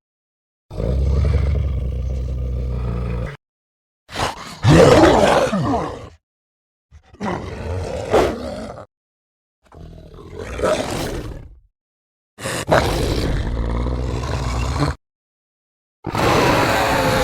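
Werewolf creature sound effects: a series of six separate roars, each about two seconds long, with short silences between them.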